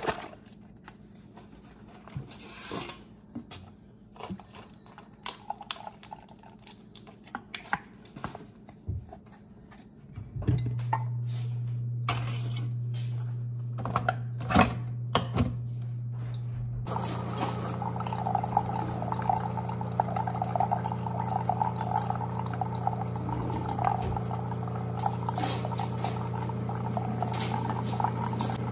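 Coffee maker brewing into a glass. First come a few clinks and knocks as the glass is handled and set down. About ten seconds in a steady motor hum starts, and some six seconds later coffee begins streaming and splashing into the glass.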